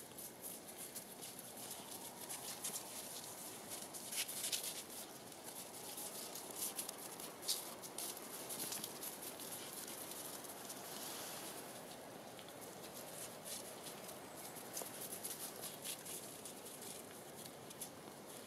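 Soft crunching and patter of paws and footsteps in a thin layer of snow over grass: a run of small crackles, with a few sharper ones about four seconds in and again near seven and a half seconds.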